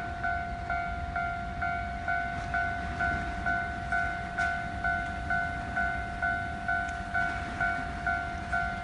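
Japanese level-crossing warning bell ringing steadily, an electronic ding about twice a second, over a constant low rumble.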